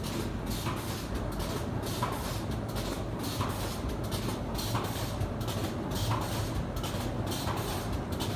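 Automatic textile paper cone making machine running: a steady mechanical hum with a regular knock about once a second from its working cycle.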